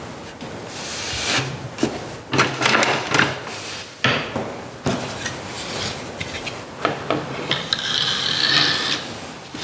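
Hand weaving on a wooden table loom: rag weft strips rubbing and swishing against the warp threads as they are laid in, with several sharp wooden knocks from the loom.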